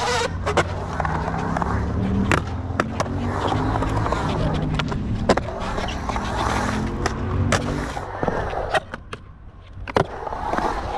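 Skateboard wheels rolling and carving around a concrete bowl, a steady roar broken by sharp clacks and knocks of the board. There is a brief quieter lull near the end before the rolling picks up again.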